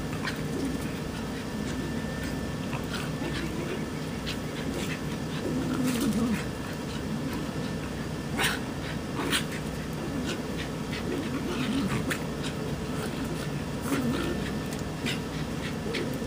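A Pomeranian and a Papillon play-fighting: panting and low wavering growls, with a few short sharp sounds, the loudest two close together a little past the middle.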